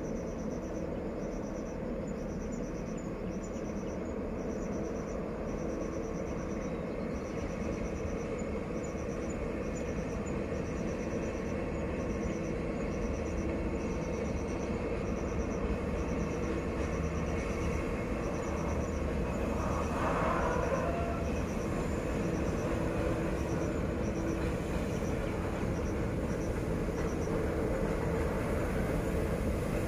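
Diesel locomotive hauling a freight train uphill, heard from a distance as a steady engine rumble that slowly grows louder as it approaches.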